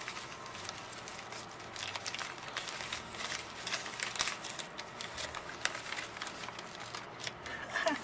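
Packaging on a bar of handmade soap crinkling and crackling irregularly as it is handled and unwrapped.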